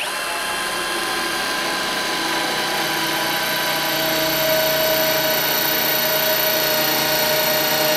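Cordless impact driver spinning a 6 mm arrowhead-tip multi-purpose drill bit through ceramic tile: a steady motor whine, growing slightly louder partway through as the bit bores in.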